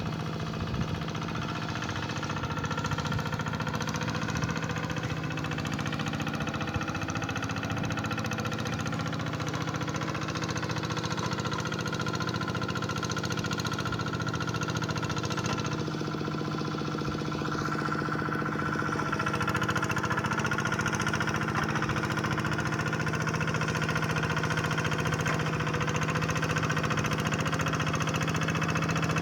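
Hand tractor engine running steadily under ploughing load, its pitch wavering slightly and growing a little louder about two-thirds of the way through.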